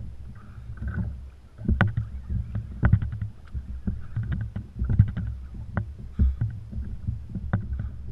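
Water sloshing against a kayak hull with a steady low rumble, broken by irregular sharp clicks and knocks from the fishing gear and hull while an angler cranks a reel during a fight with a blackfin tuna.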